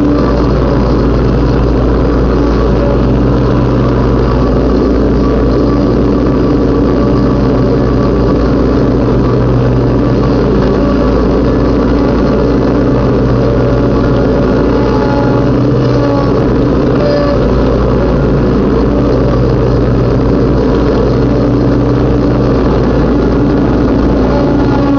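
Riding lawn mower's engine running loud and steady while cutting grass.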